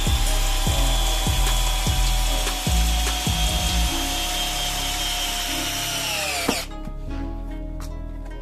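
Parkside PBSA 12 E4 12 V cordless drill driving a long wood screw into a block of wood. Its motor whine is steady, slowly sagging in pitch as the screw goes deeper under load, then winds down and stops about six and a half seconds in as the screw head seats. Background music with a steady beat plays underneath.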